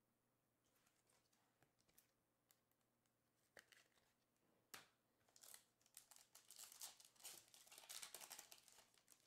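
Foil trading-card pack wrapper being crinkled and torn open by hand: a few faint clicks and a sharp tap about halfway through, then a dense run of crackling for the last few seconds.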